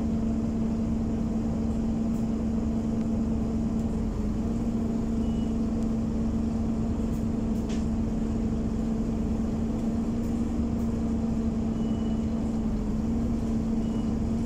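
Scania Omnicity diesel bus idling, heard from inside the cabin, with its engine cooling fan running loud: a steady drone over a low engine rumble. The drone's pitch creeps up slightly near the end.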